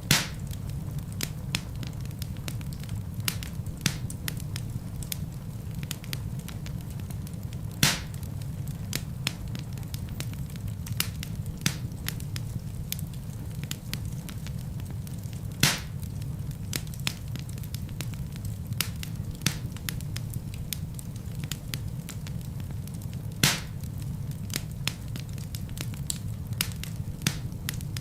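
Wood fire crackling in a fireplace: a steady low rumble of burning under frequent small crackles, with a louder pop about every eight seconds.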